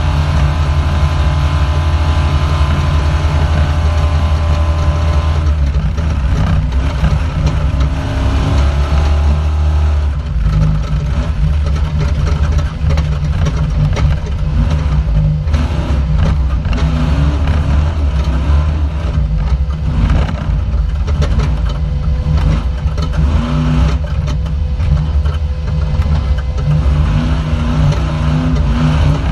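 An off-road race vehicle's engine heard from inside the cockpit, running loud. The note holds steady at first and changes about six and again about ten seconds in, after which frequent knocks and rattles come through over the engine.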